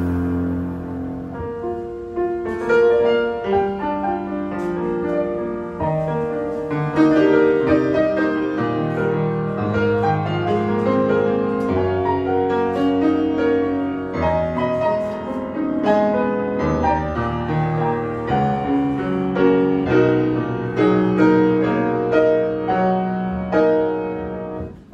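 Live jazz piano trio playing: grand piano leading over walking upright bass and drums.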